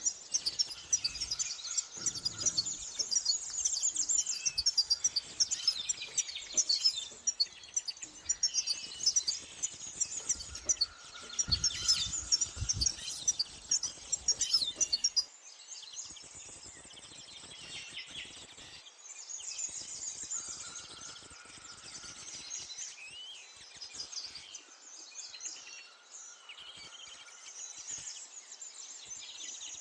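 Small songbirds chirping and twittering in dense, rapid trills. About halfway through the sound drops abruptly to sparser, quieter chirping.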